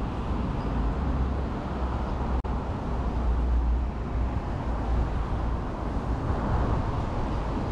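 Steady road traffic and street noise with a low rumble. The sound drops out for an instant about two and a half seconds in.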